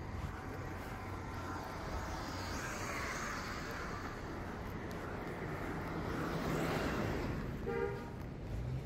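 City street traffic: cars drive past close by, one swell of tyre and engine noise after about a third of the time and another later. Near the end comes a brief car horn toot.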